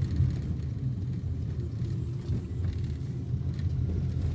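Steady low rumble of a moving road vehicle, engine and road noise with no distinct events.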